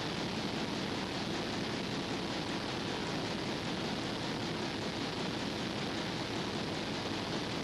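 Steady, even hiss with no distinct sounds in it: the noise floor of an old recording.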